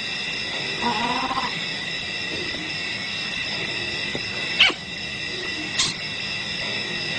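Wild-animal sounds over a steady high-pitched natural background: a short pitched call about a second in, then two sharp clicks near the middle.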